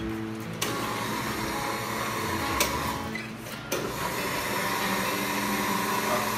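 Old 1986 electric juice mixer (blender) running, its motor and blades churning a drink in the jar with a steady whirring noise. The sound briefly drops away about three seconds in, then comes back.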